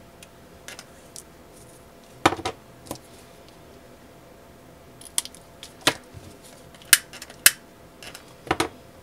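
Scissors snipping small pieces of ribbon: a handful of short, sharp snips spread out with pauses between them.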